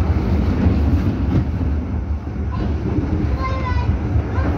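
Düwag GT8 articulated tram heard from inside the passenger saloon while running along the line: a steady low running rumble of the car on its rails. A short voice is heard about three and a half seconds in.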